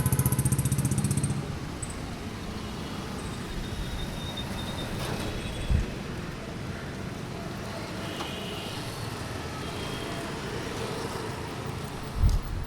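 Light road traffic. One vehicle passes close in the first second and a half, then a steady traffic hum continues, with a short low thump about six seconds in and a louder one near the end.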